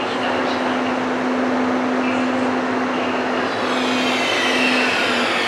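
ÖBB electric locomotive hauling a train of car-carrier wagons along the platform, running with a steady hum and a low held tone. From about halfway, several high whining tones set in and fall in pitch together.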